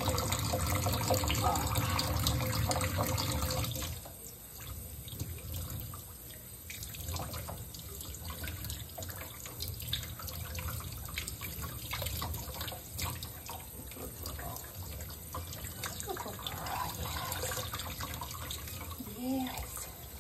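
Kitchen faucet running a thin stream into a stainless steel sink and over a wet puppy's fur, with splashing and dripping. The running water drops in level about four seconds in and goes on more softly.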